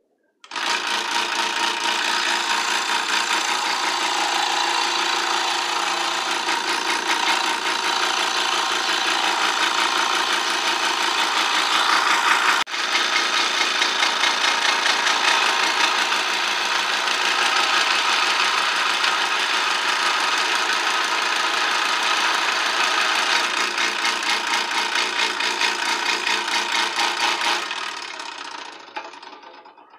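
Benchtop scroll saw starting up and running steadily, its reciprocating blade cutting the outer edge of wooden letters. The saw winds down and stops a couple of seconds before the end.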